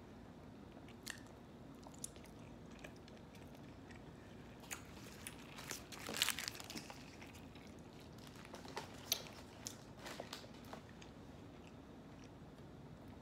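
Close-up eating sounds: soft chewing and wet mouth clicks while eating In-N-Out animal fries, fries covered in melted cheese and spread. About six seconds in there is a brief, louder burst of rustling and handling noise.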